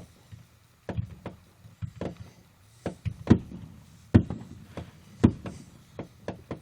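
Fireworks going off: a rapid, irregular series of sharp bangs, the three loudest about a second apart in the middle.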